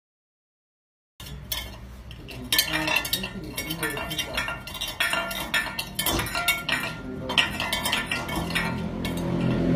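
Silent for about a second, then a dog paws at a stainless-steel food bowl, clanking and scraping it against the concrete floor again and again.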